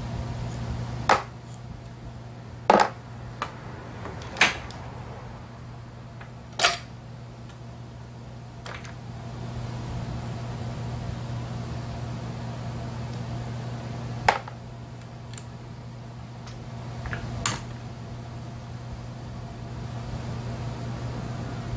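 Metal hand tools clinking and knocking against a brush cutter's engine parts as it is taken apart. About nine sharp, separate clinks are spread out, the loudest in the first seven seconds, over a steady low hum.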